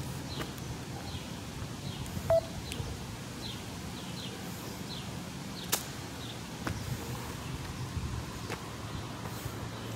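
Footsteps on a dirt and gravel roadside over a low steady outdoor background, with a short beep and click a little over two seconds in and another sharp click near six seconds.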